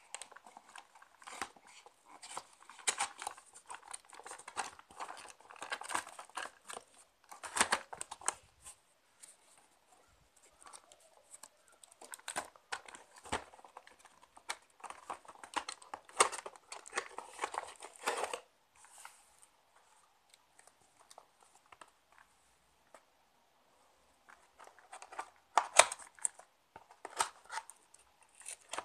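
Cardboard mouse box being handled and pried open by hand: irregular rustling, scraping and clicking of the packaging flaps. It goes mostly quiet about two-thirds of the way through, then there is more handling near the end.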